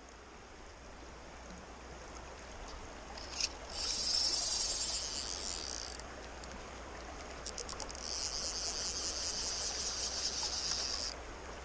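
Fly reel's click drag buzzing twice as a hooked trout runs and strips line, first for about two seconds, then for about three, each starting with a few clicks, over the steady rush of the creek.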